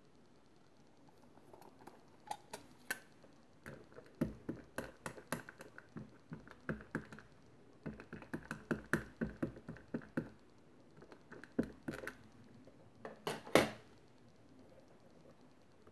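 A VersaFine ink pad patted again and again onto a rubber stamp, giving a quick run of light taps, several a second, as the stamp is inked. A louder single knock comes near the end.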